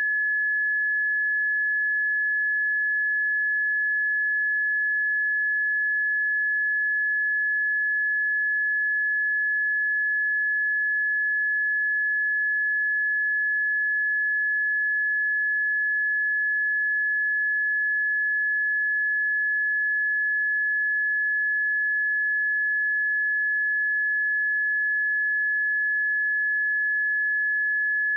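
A steady pure sine-wave test tone at 1707 Hz, one unwavering high pitch with no other sound.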